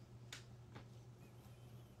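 Near silence: a faint steady low hum with two faint clicks in the first second, from trading cards in hard plastic holders being handled.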